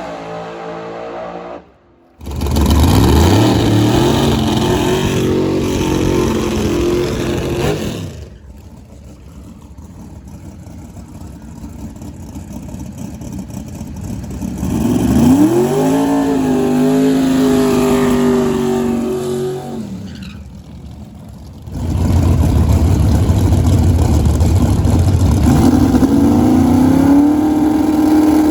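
Drag race car engines at full throttle, accelerating hard with a rising pitch. There are several separate loud runs, with sudden breaks about 2 seconds in, about 8 seconds in and near 22 seconds.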